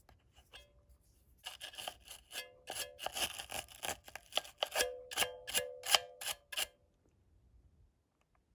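Quick scraping strokes, several a second, each with a faint ringing note, as a corroded battery-contact spring in a calculator is scraped clean. The strokes begin about a second and a half in and stop about seven seconds in.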